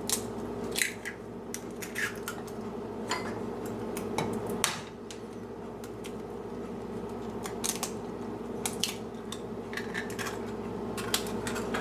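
Eggs being cracked on the edge of a bowl and broken into it: scattered sharp taps and clicks of shell and dishes, over a steady background hum.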